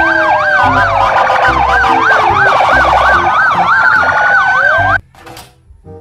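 Several police car sirens sounding at once, slow wails overlapping with fast yelps, cutting off suddenly about five seconds in.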